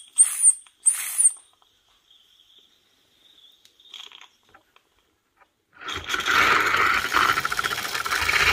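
Bassett-Lowke Enterprise live-steam model locomotive running free on a stand with its wheels off the track, starting up about six seconds in: a loud rush of steam with a fast, even beat as the wheels spin. Before that come two short, sharp high sounds in the first second or so and a few faint knocks.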